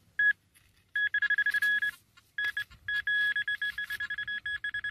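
Metal-detector pinpointer probe sounding off over a buried target: a high electronic beep pulsing rapidly, about ten beeps a second, in two runs with a brief pause between them. The pinpointer is signalling metal close to its tip, here a lead fishing sinker in the soil.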